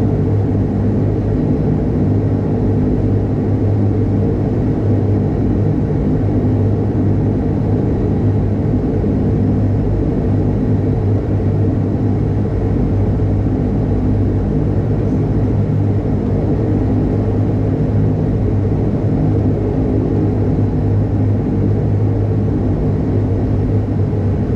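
Bombardier Dash 8 Q200 turboprop engine and propeller running at a steady low power setting as the aircraft taxis, heard from inside the cabin beside the engine: an even drone with a strong low hum that does not rise or fall.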